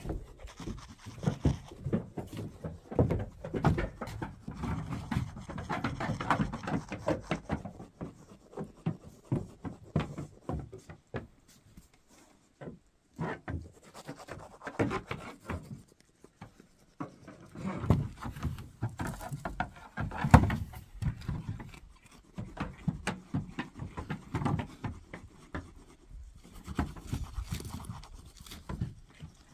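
Sheep moving about inside a house, their hooves knocking irregularly on the floor amid scuffing and rubbing.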